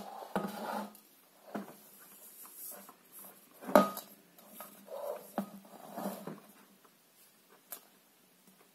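A bedside lamp's white globe shade being handled and turned over on a wooden surface: scattered knocks, clinks and scrapes, with the sharpest knock a little before the middle.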